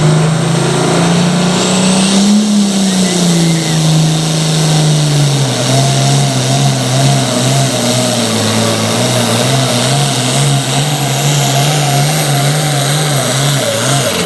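Turbocharged diesel engine of a super farm pulling tractor running hard under load. Its pitch climbs briefly, then drops and wavers unevenly through the second half, which the announcer puts down to tire bouncing at the big end of the pull.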